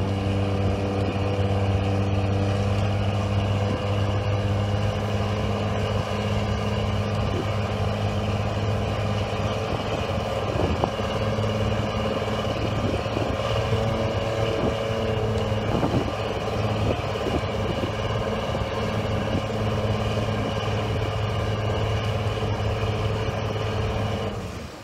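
Fishing boat's engine running steadily under way, an even low drone with a thin high whine above it; it drops away sharply near the end.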